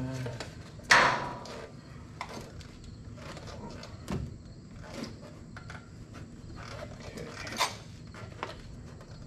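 Handling knocks from working on a truck's steel fender: a sharp clack about a second in, another shortly before the end, and small knocks and rustling between.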